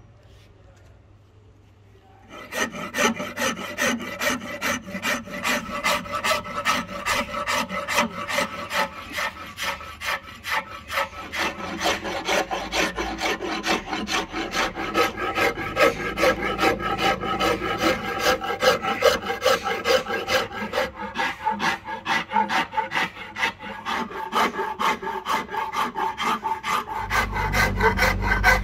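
Flat steel hand file scraping back and forth across a hard ebony axe handle, a rapid run of rasping strokes that starts about two seconds in. The file is shaping the handle.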